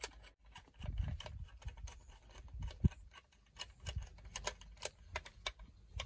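Screwdriver work on a wooden rifle stock: soft low knocks of handling, then a run of small sharp clicks, roughly three a second, from about halfway in as the trigger-guard screw is turned.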